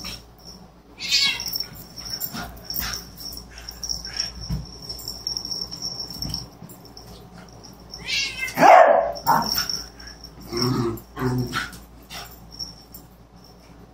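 Beagle and cat play-fighting: scuffling and knocks on the rug and floor, with short cries, barks and growls from the animals. The loudest cry comes about eight and a half seconds in, followed by two short low ones.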